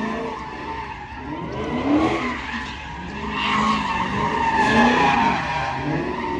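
Car engine revving up and down again and again, about once every second or two, with tires squealing steadily on pavement: a car spinning its tires.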